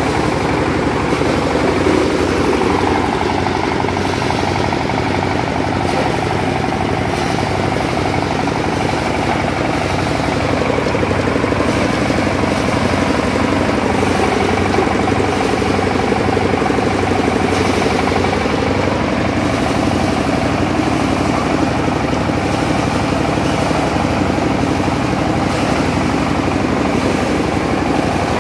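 BRRI-model paddy thresher running steadily, a continuous mechanical drone from its drive and spinning threshing drum.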